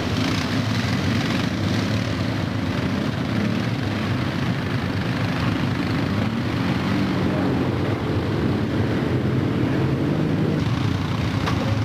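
Several ATV engines running together, their pitch rising and falling as the quads work through a muddy trail.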